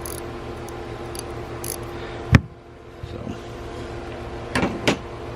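Hand tools being handled and set down: a sharp metal knock about two and a half seconds in and two lighter clicks near the end, over a steady background hum.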